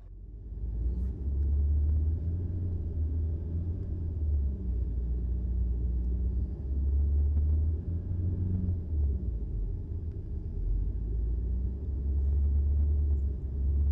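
Road and engine rumble of a moving car heard from inside the cabin: a low, steady rumble that swells and eases slightly.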